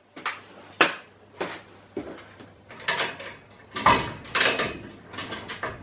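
A small chain come-along being worked to lift a milling machine's ram: a string of sharp metallic clicks and chain rattles at irregular intervals, bunched most closely about four seconds in.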